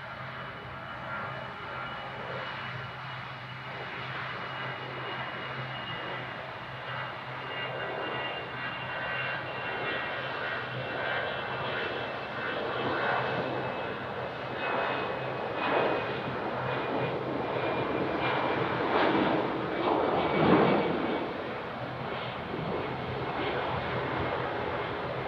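Departing Airbus A319's jet engines at takeoff power: a steady rumble with a faint, slowly falling whine, swelling to its loudest about twenty seconds in.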